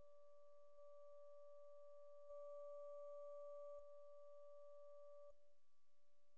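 Pure electronic sine tones from the soundtrack: a very high, thin steady tone with two lower steady tones beneath it, stepping up and down in loudness. About five seconds in, the lower tones fall away to faint while the high tone carries on.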